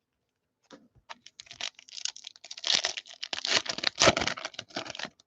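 Trading-card pack wrapper crinkling and tearing open, with cards rustling as they are handled: a quick, irregular run of crackles starting about a second in and growing busier.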